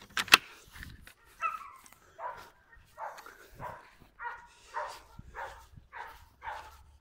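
Footsteps crunching and squeaking in snow at an even walking pace, about one and a half steps a second. A single sharp click comes just as it begins.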